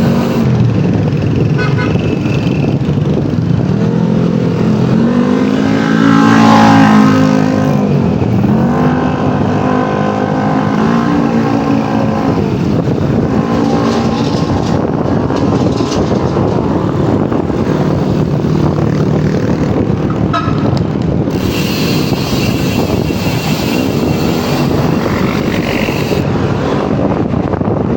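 Bicycle rear freehub buzzing loudly as the wheel coasts, its pitch rising and falling with the wheel's speed.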